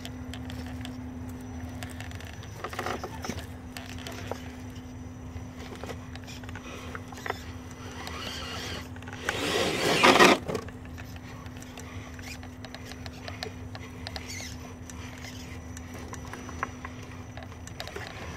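RC rock crawler's electric motor and drivetrain whining steadily as the truck creeps over rocks, with small clicks of tyres and chassis on stone. About ten seconds in, a loud rush of noise lasts roughly a second while the whine drops out.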